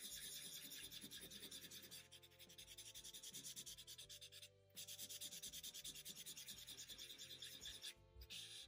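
Felt-tip marker scribbling quickly back and forth on paper while colouring in, faint, about five strokes a second with a few short pauses.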